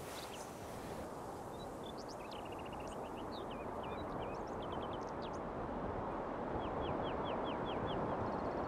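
Small birds chirping, with a quick trill and, near the end, a run of about eight short falling notes, over a steady rushing hiss that slowly grows louder.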